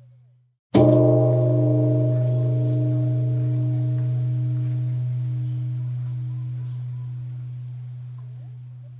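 Temple bell struck once, a little under a second in. It rings with a strong low hum and several higher overtones that slowly die away, just after the last of the previous stroke has faded out.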